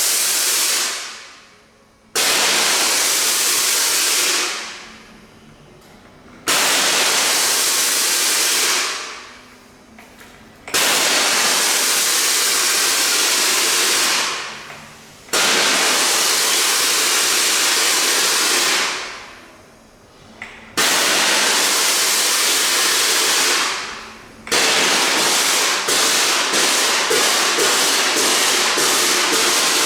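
Liquid-CO2 jet machine firing repeated blasts of gas through its solenoid valve under DMX control: six loud hissing jets, each starting with a sudden snap and lasting about two to four seconds before tailing off. The last jet, about 25 seconds in, comes as a rapid stutter of quick pulses.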